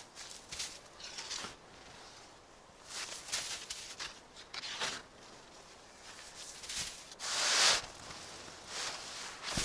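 Snow shovel digging into packed snow: short crunching scrapes at irregular intervals as snow is scooped and thrown, the longest and loudest about seven and a half seconds in.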